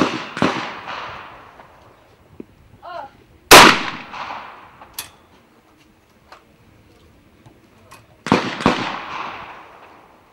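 Over-and-under trap shotguns firing at clay targets. Two quick shots at the start, a single loud shot about three and a half seconds in preceded by a shooter's short call for the target, and two more quick shots near the end, each shot ringing out with a trailing echo.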